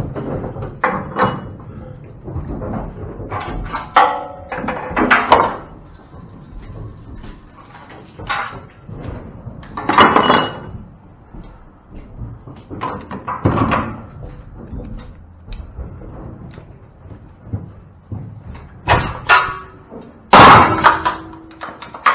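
Aluminum livestock trailer's gates and partitions banging and clanging as cattle are shut into a compartment. There is a string of metal slams, the loudest about halfway through and one near the end.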